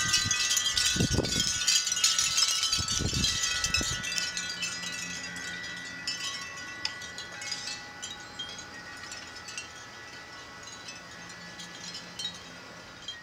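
Wind chimes ringing with many overlapping tones, loudest at first and slowly dying away. There are two low rumbles about one and three seconds in.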